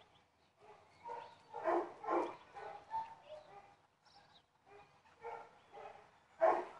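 Dogs barking, a few short barks at a time, loudest about two seconds in and again near the end.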